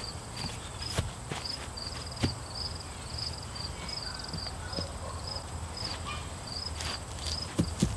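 Insects chirping in a steady rhythm of short chirps, about two to three a second, with a few faint knocks.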